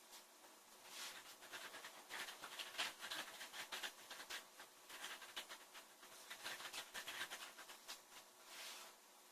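A sleeping woman breathing softly between snores, with a long run of faint, rapid crackling clicks through the middle.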